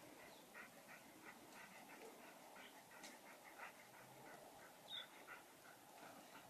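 A dog panting faintly and steadily, about three breaths a second. A short high chirp about five seconds in.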